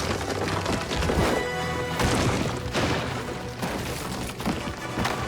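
Background music with several crashing impacts, cartoon sound effects of rocks being piled up into a wall.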